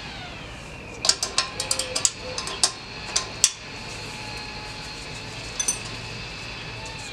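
Metal wrench clinking against the nuts and studs of a turbo exhaust-manifold flange: a quick, irregular run of about a dozen sharp metallic clicks starting about a second in, then two faint clinks near the end.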